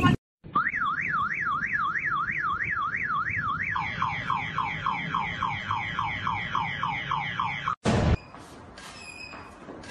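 Car-alarm siren pattern: a fast rising-and-falling warble about three times a second, then a run of quick falling sweeps about four a second. It stops abruptly near the end with a short loud burst.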